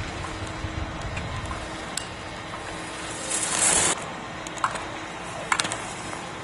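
Giant-slalom racer's skis carving across hard-packed snow: a steady scraping hiss that swells into a louder rasp for about half a second just after three seconds in. A few sharp clicks come later.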